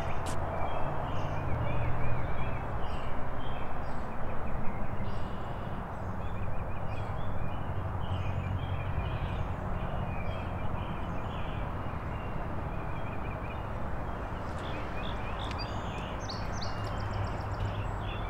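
Songbirds chirping and twittering in many short calls, over a steady low hum and a rough crunching noise of footsteps on a wet gravel lane, uneven and loudest in the first few seconds.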